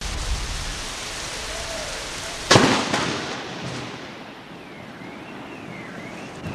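A close thunder clap: a sudden loud crack about two and a half seconds in, at the same instant as the lightning flash, dying away over about a second. Before it there is a steady hiss of rain, which grows quieter after the crack.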